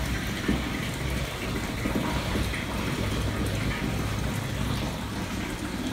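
Water running steadily into a rooftop water storage tank through its PVC pipe as the tank fills.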